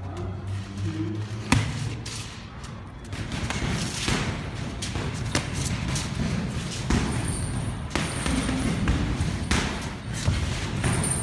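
Boxing gloves thudding as punches land during sparring: several separate sharp knocks, the loudest about a second and a half in, over a steady background noise.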